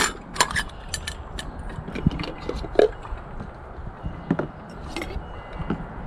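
Camping cook gear being handled: a stainless steel cook pot and its contents give irregular clicks, clinks and light knocks, with a couple of sharper ones near the start and just before three seconds in.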